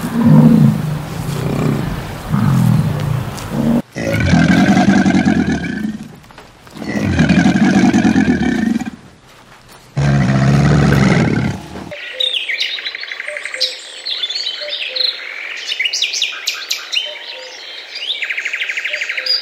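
A sequence of animal calls: short low grunts, then three long, loud low growls, then birds chirping with fast trills through the last seven seconds. The grunts come from an American bison and the growls from crocodiles.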